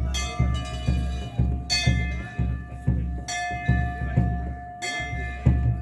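Hindu temple bells being struck, a bright ringing strike about every second and a half, each tone ringing on into the next. A low, regular thumping beat runs underneath, about two to three beats a second.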